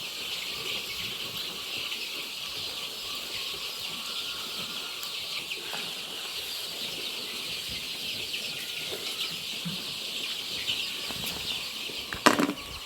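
A flock of young Bovans Brown chicks cheeping continuously in a dense high chorus. A short sharp knock near the end.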